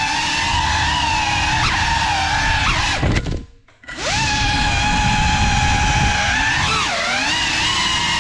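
Motors and propellers of a 6S 3.5-inch cinewhoop FPV quadcopter whining, the pitch rising and falling with the throttle. About three seconds in, the whine drops away to almost nothing for under a second, then spins back up with a rising pitch.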